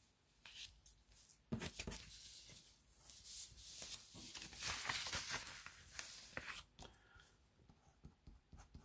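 Sheets of paper rustling and sliding as pages are moved and handled, with a soft knock about a second and a half in. Near the end, a ballpoint pen scratching on paper.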